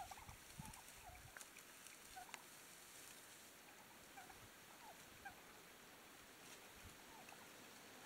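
Wild turkeys giving faint, short, soft calls, about a dozen brief notes scattered unevenly, with a couple of faint ticks among them.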